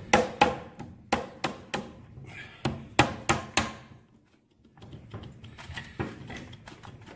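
Hammer blows in quick runs of two, three and four strikes through the first four seconds, then softer knocks and clatter.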